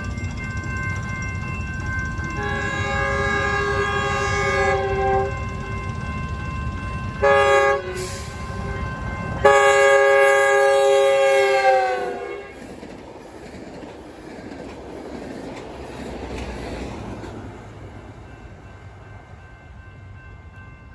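Metrolink commuter train sounding its horn chord at a grade crossing: long blasts, a short one, then a final long blast whose pitch drops as the train passes. The train's heavy rumble runs under the horn and eases after the last blast.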